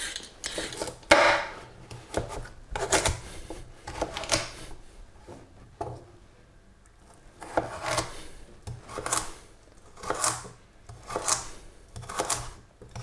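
A carrot being cut with a kitchen knife on a cutting board: separate short knife strokes at an uneven pace, with a pause about halfway through.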